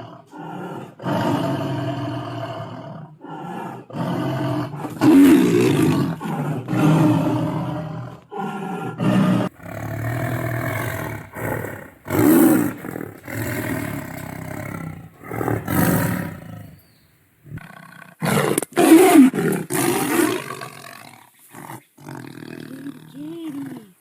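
Tigers roaring: a run of separate roars, one after another, with a brief pause about two-thirds of the way through.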